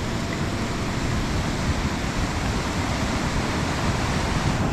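Steady rushing noise with an uneven low rumble underneath.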